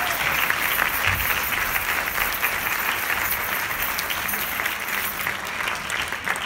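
Audience applauding steadily, tapering off slightly toward the end.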